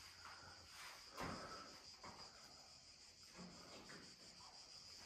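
Near silence with a faint, steady, high-pitched insect chirring and a soft knock about a second in.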